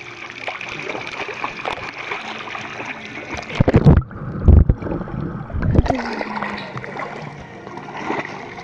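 Pool water splashing and sloshing right at the microphone, with heavy thumps about three and a half to six seconds in. Around four seconds the sound goes briefly muffled as the microphone dips underwater.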